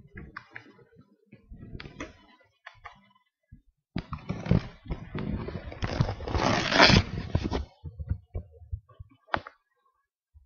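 Fabric rustling and scraping on a bedspread, with scattered clicks and knocks. The loudest part is a long, dense rustle from about four seconds in to nearly eight, with a sharp click shortly before the end.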